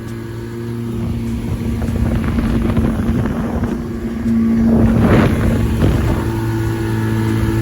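Small boat's outboard motor running under way, a steady hum. About four seconds in, a louder rushing of wind and water swells up for a couple of seconds, then settles.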